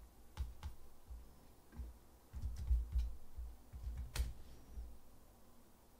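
A few scattered computer keyboard keystrokes: two light clicks about half a second in and a sharper one a little after four seconds, with soft low thumps between them.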